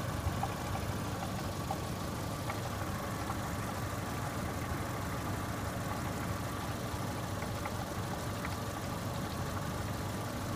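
Saturn S-series four-cylinder engine idling steadily, with faint scattered metallic clicks, a sound the owner likens to a muffled cow bell and puts down to something loose in the front pipe or catalytic converter.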